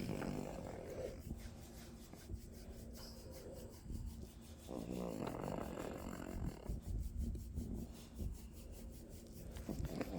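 Contented dog making low, drawn-out grunting moans, a sign she is relaxed: one at the start and a longer one about five seconds in, with rough snore-like breathing between.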